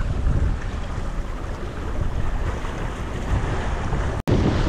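Wind buffeting the microphone over the rush of water along the hull and wake of a Marieholm IF sailboat under way, a steady low rumble and hiss. The sound cuts out for an instant near the end.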